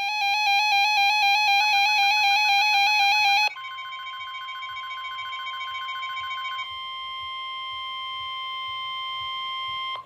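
A weather radio receiver's alarm sounds a fast, rapidly alternating two-tone beeping for about three and a half seconds, then switches to the steady NOAA Weather Radio warning alarm tone, a single held tone near 1 kHz, signalling a flash flood warning.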